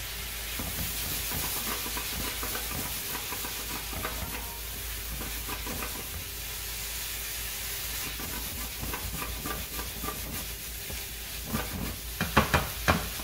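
Mushrooms, onions and corn sizzling and steaming in a frying pan with wine and vegetable base just added, while a wooden spatula stirs and scrapes through them. Several sharp knocks of the spatula against the pan near the end.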